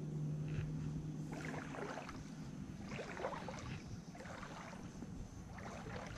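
Legs wading through a shallow creek, the water sloshing with each step, about four times. A low steady hum fades out about two seconds in.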